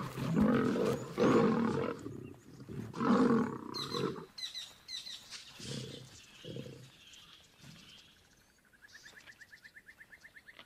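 Two male lions fighting, growling and roaring in loud harsh bursts for about four seconds, then two shorter growls. Near the end a faint rapid chirping starts.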